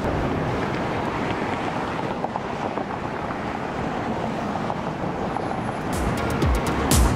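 Steady outdoor noise of traffic rumble and wind on the microphone, then electronic dance music with a heavy thumping beat comes in about six seconds in.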